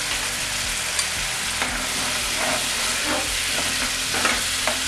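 Grape chutney sizzling and bubbling in a nonstick pan as freshly added sugar dissolves into it, with a metal ladle stirring and knocking against the pan a few times from about a second in.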